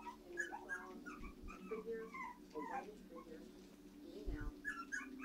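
Three-week-old puppies whimpering and squeaking, a quick run of short, high-pitched whines.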